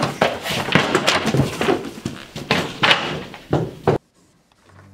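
People running and scrambling between desks: a busy, irregular clatter of footsteps and knocks that cuts off suddenly about four seconds in.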